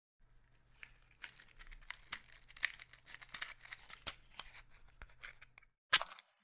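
Faint, irregular crackling and crinkling clicks over a low steady hum, then one sharp snap near the end.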